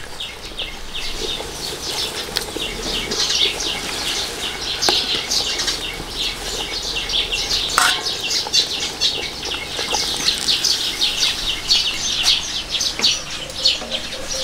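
Small birds chirping busily in quick, high bursts, with one louder falling call about eight seconds in.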